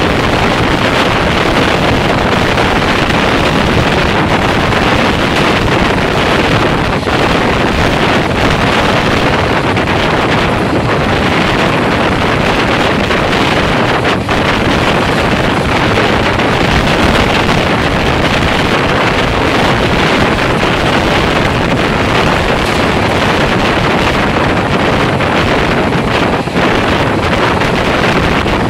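Loud, steady rush of wind on the microphone mixed with the running noise of a moving passenger train's coach wheels on the track.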